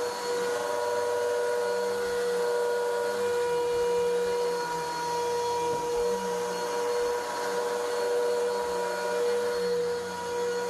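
Vacuum cleaner running steadily over carpet, its motor whine holding one pitch over a lower hum that wavers a little.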